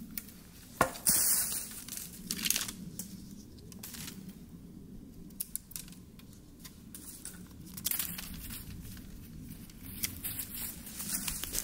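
Knife shaving wood from a stick in irregular scraping strokes, the loudest about a second in.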